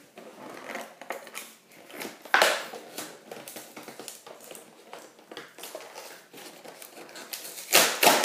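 Plastic and cardboard toy packaging being handled and crumpled, an irregular run of crackles and clicks with louder crinkling bursts about two seconds in and near the end.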